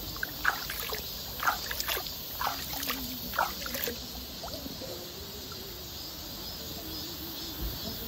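Shallow stream water trickling, with a run of about eight small splashes and plinks over the first four seconds, then a steadier trickle.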